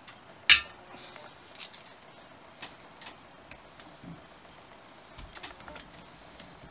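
Honda CB125S carburettor body and its small metal parts clicking and tapping as they are handled on the bench: one sharp click about half a second in, then scattered light ticks.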